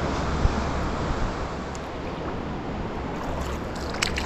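Sea kayak paddling on calm sea: steady water wash around the hull and paddle, with a sharper splash about four seconds in as the blade dips into the water.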